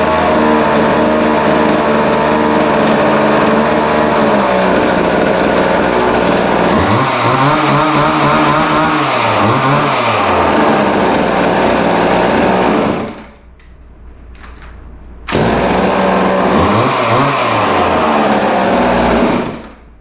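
Vintage Montgomery Ward 10-inch chainsaw's two-stroke engine running with the chain spinning, blipped up and down in revs three times. It drops away about two-thirds through, comes back abruptly a couple of seconds later, revs twice more and stops just before the end. The engine is running well after its carburettor screws were adjusted.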